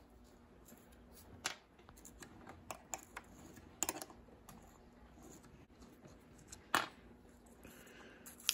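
Light metallic clicks and taps from a Shimano 400FF rear derailleur being handled and an 8 mm wrench being fitted to its pulley bolt. The clicks come singly, a few seconds apart, and the sharpest falls about two thirds of the way through.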